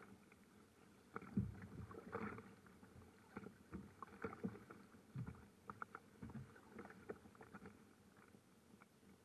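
Choppy water lapping and slapping against a kayak hull in a light wind: irregular small splashes and knocks, busiest over the first seven seconds, then easing off.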